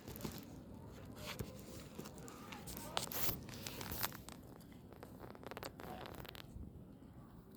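Irregular crackling and rustling with sharp clicks, from peanuts and their shells being handled. It fades out near the end.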